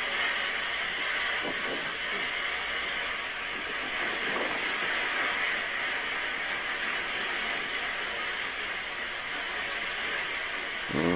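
A steady, even hiss with no pitch.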